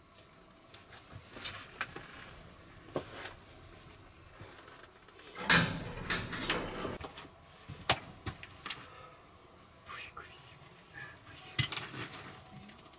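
Rustling of a person moving about, with scattered sharp clicks, knocks and clinks of things being handled; the loudest stretch is a burst of rustling about five and a half seconds in.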